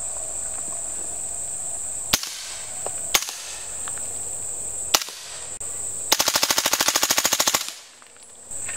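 Suppressed shots from a Rock River Arms LAR9 9mm carbine with an MP5SD-style silencer: three single shots, then a fast, even string of shots lasting about a second and a half, fired by rapid manual trigger manipulation (bump fire). A steady high insect drone runs underneath.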